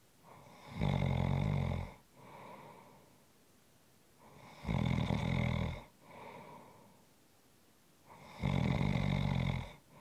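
Rhythmic snoring: three loud, rasping snores about four seconds apart, each followed by a shorter, softer breath.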